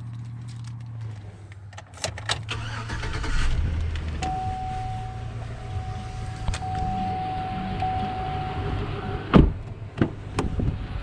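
Mechanical sounds from a 2006 Chevrolet Avalanche: a few clicks about two seconds in, then a steady electric whine lasting about four and a half seconds, then a sharp knock near the end, with a smaller one just after.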